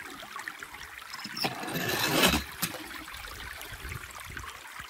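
Water trickling steadily, with a louder rushing patch and a few light clicks about two seconds in, as a small die-cast toy car runs down a wet plastic slide into the water.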